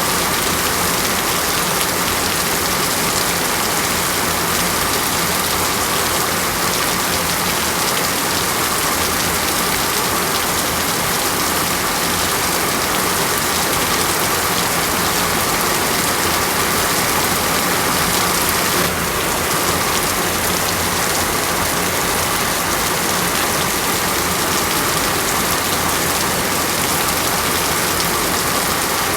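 Steady rain falling on a surface, an even, unbroken hiss of drops.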